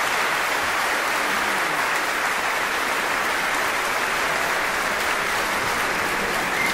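Large concert audience applauding: dense, steady clapping from many hands.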